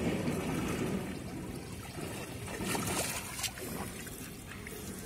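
River water trickling and splashing, with a few brief sharper splashes about two and a half to three and a half seconds in.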